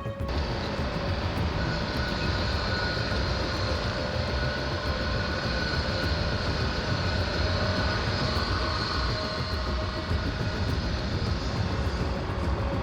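Steady vehicle noise that cuts in abruptly just after the start.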